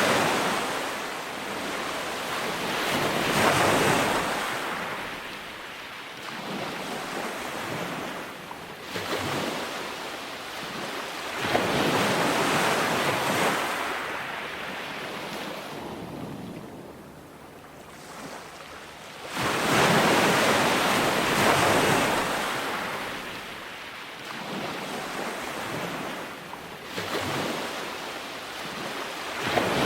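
Ocean waves breaking on a beach: a rush of surf that swells and washes back about every eight seconds, four surges in all.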